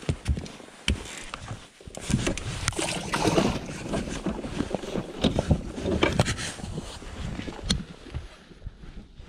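Handling noise of a body-worn camera being repositioned: fabric rustling against the microphone with irregular knocks and clicks, busiest in the middle stretch.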